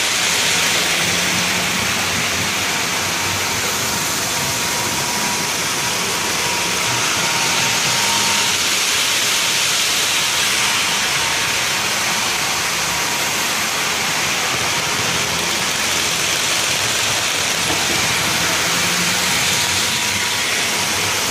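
Model locomotives running on a model railroad layout: a steady rolling hiss of wheels on track, with a faint thin steady whine.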